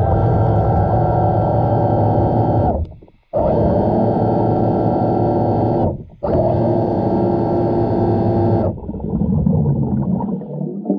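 A steady, low-pitched mechanical hum with many overtones, heard underwater, that cuts off abruptly twice for a moment; near the end it gives way to rougher, uneven water noise.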